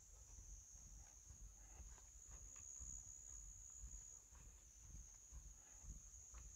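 Faint, steady high-pitched chirring of insects in scrubland, with a faint low rumble underneath.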